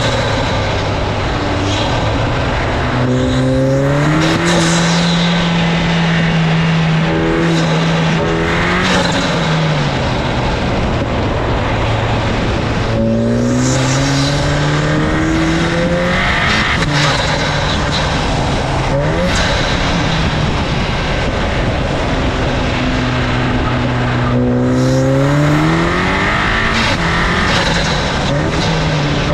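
Turbocharged 2.0 TSI four-cylinder with a Blaze ATOM intake, driven hard through an autocross course with its induction noise loud. The revs climb, hold and fall several times as the car accelerates between cones and slows for turns, with a drop in revs a little before the middle and again near the end.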